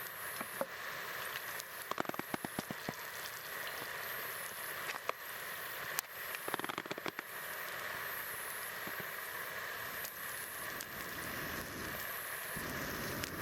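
Campfire crackling: scattered sharp pops, in small clusters about two seconds in and again around six to seven seconds in, over a steady outdoor hiss.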